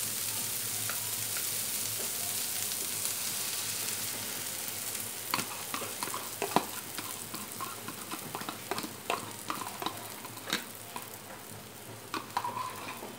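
Diced onion and bell peppers sizzling in a frying pan as beaten egg is poured over them, the sizzle slowly fading. From about five seconds in, a spoon scrapes and clicks against the egg bowl several times.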